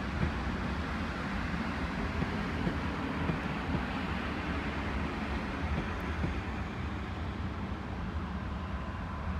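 Steady low rumble and hiss of distant rail and road traffic, with a train approaching from far down the line.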